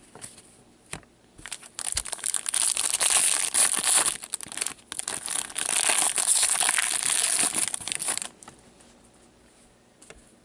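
Foil wrapper of a 2016-17 Upper Deck MVP hockey card pack being torn open and crinkled, a dense rustle from about a second and a half in until about eight seconds in, with a brief break midway.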